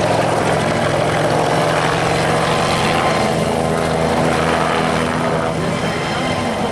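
A low-flying aircraft passing, its engine running steadily with a rapid low pulsing throughout.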